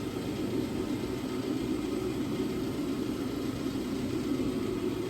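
A steady low whir and rumble of background noise, even throughout, like a running fan or blower.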